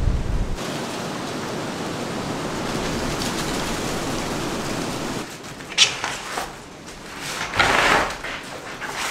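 Steady rushing noise of stormy wind for about five seconds, then it drops away. A few short rustles and scuffs follow, the loudest near the end, as a cot bag is handled on a debris-strewn floor.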